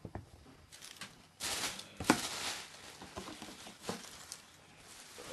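Rustling and light knocking from the shoebox and shoes being handled, in a few bursts; the longest is about one and a half to two and a half seconds in, with a shorter one near four seconds.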